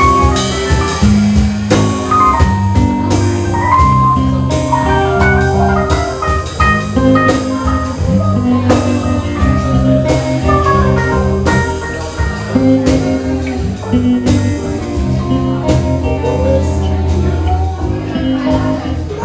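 Band music with no singing: a drum kit keeps a steady beat under a bass line while a lead instrument plays a melodic line, in a bluesy style.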